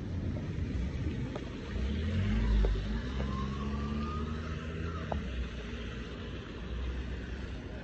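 A car engine running close by on a wet street, swelling to its loudest about two and a half seconds in, over the hiss of tyres on wet road.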